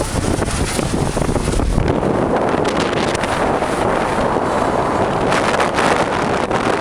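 Strong wind buffeting the microphone, a loud, steady rushing rumble with no distinct other sound.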